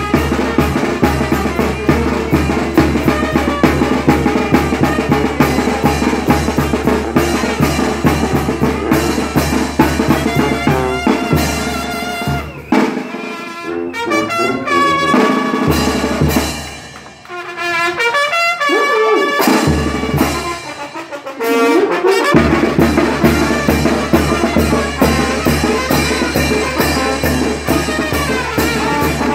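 Brass band playing chinelo dance music: trumpets and other brass over a steady drum beat. Near the middle the drums drop out and the brass plays on its own for several seconds, then the full band with drums comes back in.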